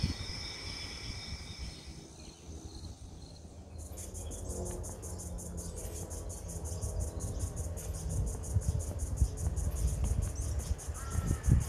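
Insects calling in bushland: a steady high-pitched trill in the first couple of seconds, then from about four seconds in a fast, even pulsing of high chirps, about six a second.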